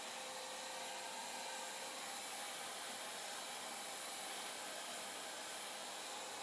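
Hand-held hair dryer blowing steadily: an even rush of air with a faint steady whine.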